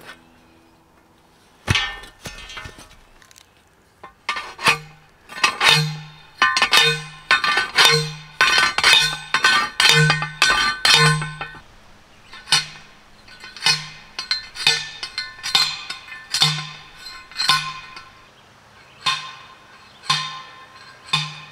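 Post driver hammering a steel T-post into the ground: a run of sharp metallic clanks, each ringing with a pitched tone, about one to two strikes a second. The strikes come fast from about four seconds in and slow and lighten in the second half.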